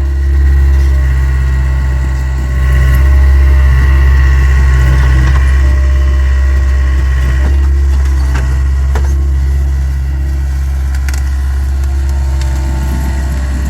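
Takeuchi TL26 skid steer's engine running steadily with a steady whine over the low engine note, growing louder about two and a half seconds in. A few short knocks sound in the second half.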